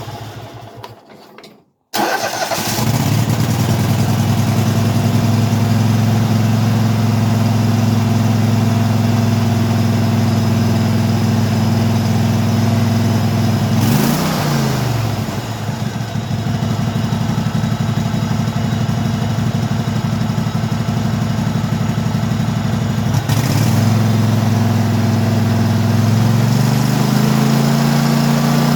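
Craftsman riding mower's V-twin engine catching about two seconds in after a brief start attempt, then running steadily. Around halfway its speed dips for a moment and recovers, and near the end the engine speed shifts. It now runs on its own after a carburetor cleaning, where before it would only run on starting spray.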